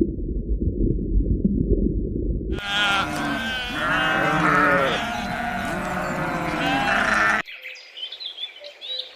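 A low rumbling noise for the first couple of seconds, then sheep bleating several times over about five seconds. After an abrupt cut, faint bird chirps near the end.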